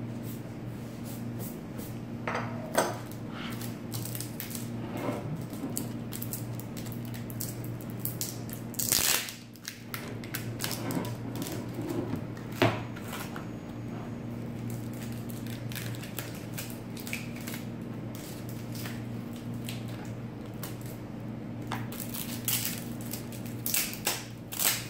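Unboxing handling: scattered clicks, knocks and rustles as packaging and loose parts are picked up and set down on a wooden table, with a few louder rustling clatters near 9 s, 12 s and the end. A steady low hum runs underneath.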